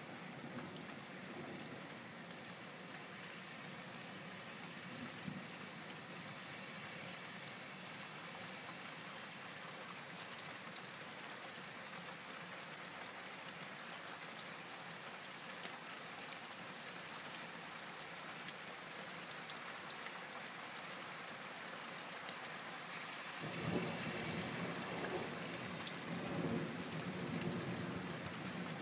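Steady rain falling, with single drops ticking close to the microphone. About three-quarters of the way through, a low rumble of thunder starts and keeps going.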